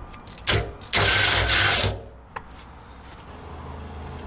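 Cordless drill boring through the sheet-metal floor of the cargo well: a short burst of drilling about half a second in, then about a second of steady drilling that stops before halfway.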